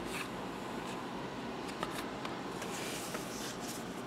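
Trading cards being handled: a few soft slides and light clicks of card stock over a steady low room hum.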